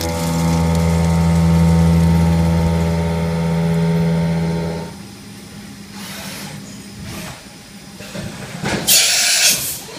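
Kitamura HX400G horizontal machining centre face-milling 1045 steel with a 2-inch five-insert shell mill at 1000 RPM: a loud, steady hum with a clear pitch until the cut ends about five seconds in. The machine then runs quieter with a few light knocks, and a short loud hiss comes about nine seconds in.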